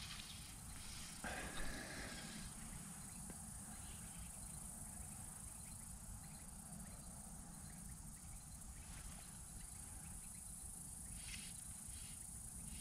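Insects chirring steadily, a thin high-pitched hum, over a constant low rumble.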